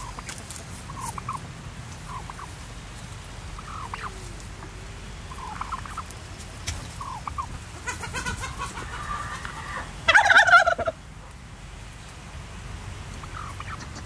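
Domestic turkeys calling with short, soft notes every second or so, then a tom gobbling loudly for about a second, about ten seconds in.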